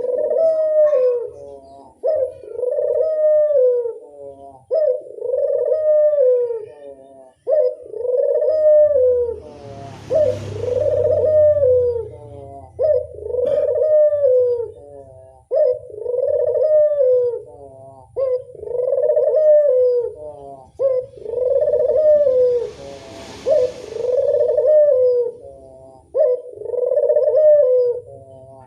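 Barbary dove (burung puter) cooing over and over, about one coo every two seconds, each a short note followed by a longer arched coo. A brief hiss breaks in twice, about ten seconds in and near the end.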